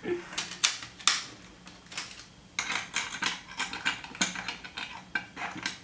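Irregular light clicks and clinks of strips of coloured metal staples being handled and fitted into the small plastic storage drawer of a staple board, with two sharper clacks about a second in and about four seconds in.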